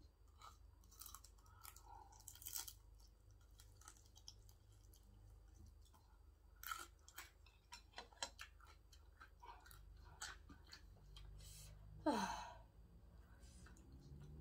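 A person chewing food, faint, with scattered small mouth clicks. About twelve seconds in there is one short falling whine, the loudest sound.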